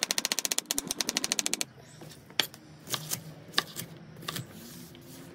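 Kitchen knife chopping vegetables on a cutting board: a fast, even run of knocks, about a dozen a second, for the first second and a half, then slower single cuts through asparagus stalks.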